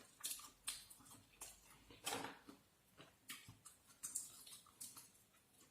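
Faint, irregular clicks and crackles of someone handling and eating food.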